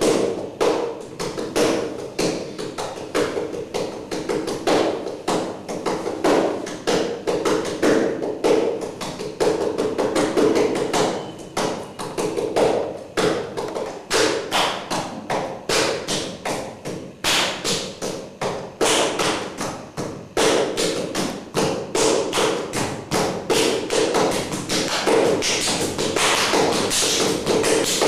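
Rapid, uneven tapping and thumps, several strikes a second, with no break.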